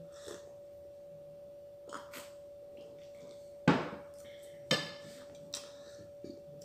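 Two sharp knocks of a tea glass against the table, about a second apart, each with a brief ringing tail, over a steady high-pitched hum.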